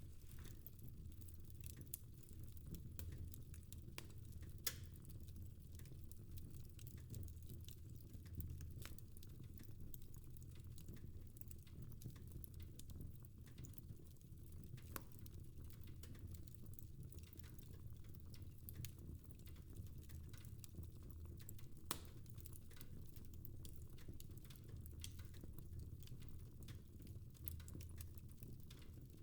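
Wood fire crackling in a fireplace: irregular small snaps and pops, a few louder than the rest, over a faint low steady hum.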